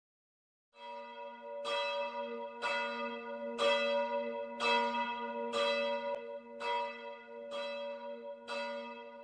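Church bell tolling, struck about once a second from about a second in, each strike ringing on into the next.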